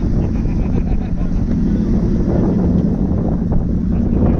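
Porsche Cayenne S engine running steadily while driving, with wind buffeting the microphone.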